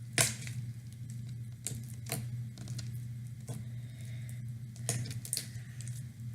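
Homemade slime being handled, giving scattered sticky clicks and squelches, the loudest just after the start, over a steady low hum.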